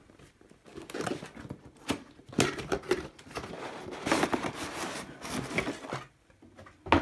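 Cardboard train-set box being handled and its lid slid off, with irregular scraping and rustling of card, then a sharp knock near the end.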